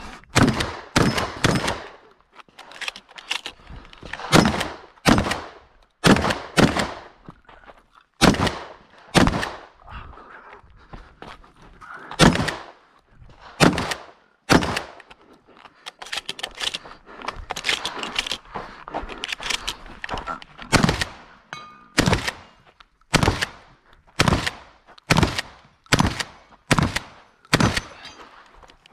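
Shotgun fired over and over in quick strings, some two dozen shots in all, often half a second to a second apart, with a few short pauses between strings.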